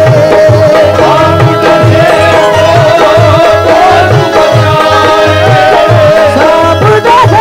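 Qawwali music between sung verses: a wavering melody line on keyboard and harmonium over a steady hand-drum beat.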